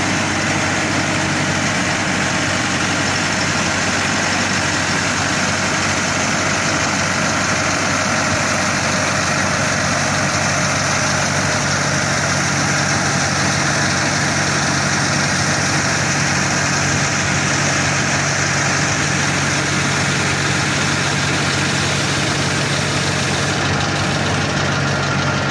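Tractor engine running steadily at a constant speed, driving a 3000-litre crop sprayer, with a steady hiss over the engine note.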